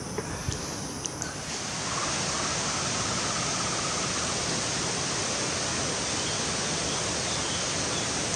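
Steady rush of falling water, growing louder about a second and a half in and then holding even.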